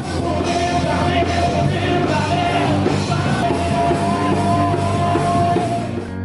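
Background music: a loud band track with a sung vocal line, ending in a cut to a different, quieter piece.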